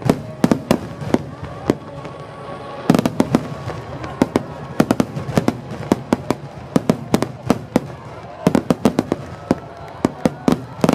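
Fireworks exploding in a rapid, irregular series of sharp bangs and crackles, with dense clusters of reports about three seconds in, around five seconds and near nine seconds.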